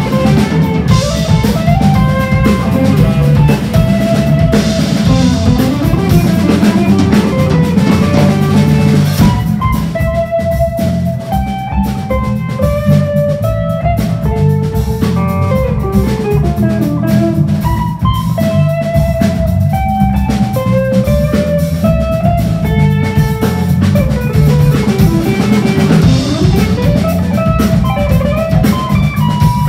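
Live instrumental trio of electric guitar, electric bass and drum kit. The electric guitar plays a lead melody with slides between notes over the bass and drums. The cymbals drop back about a third of the way in and come up again near the end.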